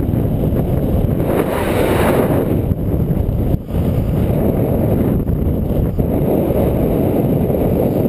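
Wind buffeting the handlebar-mounted action-camera microphone of a road bike descending at high speed. It is a loud, steady rush with a louder, hissier swell about two seconds in.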